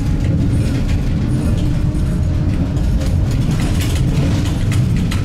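Tram running along its rails, heard from inside: a steady low rumble with quick rattling clicks from the wheels on the track, the clicks getting busier in the second half as it takes a curve.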